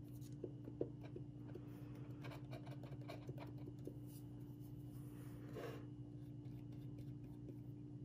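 Faint scratching and light taps of a small paintbrush and fingers working glued birch bark strips onto a wooden board, with one slightly louder scrape about two thirds of the way through. A steady low hum runs underneath.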